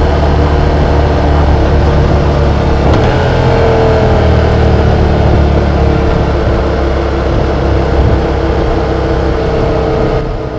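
Yamaha XSR700's 689 cc parallel-twin engine running under way while riding, heard from onboard with road noise; it fades out near the end.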